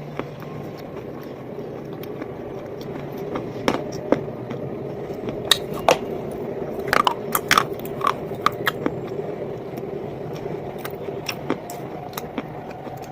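Close-up biting and crunching of hard, brittle bars in the mouth: sharp cracks and crackles, densest about halfway through, over a steady low background hum.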